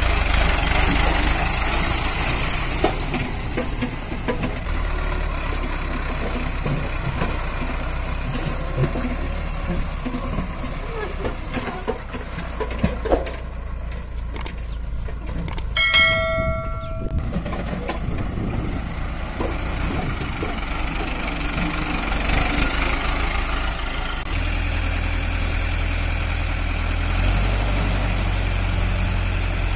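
Diesel engine of a Mahindra Arjun Ultra 555 DI tractor running steadily under load as it hauls a trailer full of soil, with a brief horn-like pitched tone about halfway through. About three-quarters of the way in, the engine note grows heavier and louder as the hydraulic tipper raises the trailer bed.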